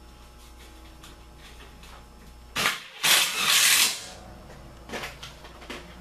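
Cordless Makita impact driver driving a screw through the sheet-metal filter rack into the furnace cabinet: a short burst about two and a half seconds in, then about a second of running. Two light clicks follow near the end.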